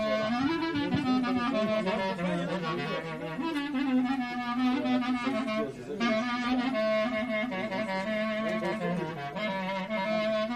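Clarinet playing a solo taksim: an ornamented melody with glides, over a steady low note. There is a short break about six seconds in.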